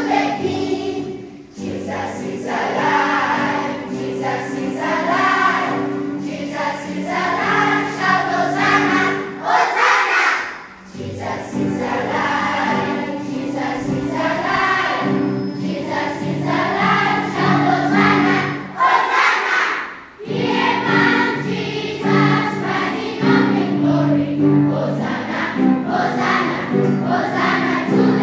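Children's choir singing a Sunday school action song, with brief breaks between phrases about 10 and 20 seconds in.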